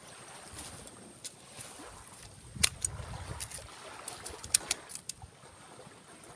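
A few sharp, irregular clicks and knocks of a hand tool working at the dead wood on a santigi (Pemphis acidula) trunk, over a steady background hiss.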